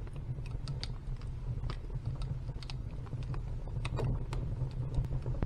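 Logs burning in a wood stove, crackling with irregular sharp pops and snaps over a steady low rumble.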